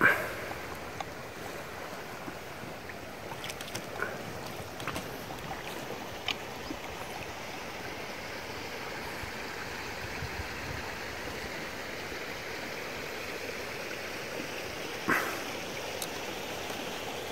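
River current running around an inflatable boat drifting downstream: a steady hiss of moving water, with a few brief sharp sounds, the loudest near the end.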